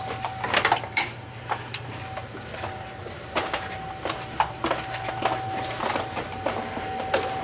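Beckett oil burner running, with a steady high-pitched whine over a low hum. The technician suspects the whine may be air in the burner's oil pump. Irregular clicks and knocks sound over it.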